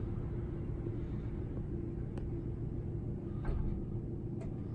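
Steady low mechanical hum and rumble, with a few light clicks while a pair of automated bi-parting glass sliding doors slides shut; the loudest click comes about three and a half seconds in.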